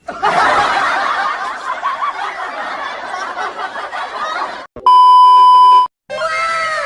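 Dubbed-in comedy sound effects: about four and a half seconds of many voices laughing together, then a steady censor beep for about a second, then a short falling whistle-like glide in several tones.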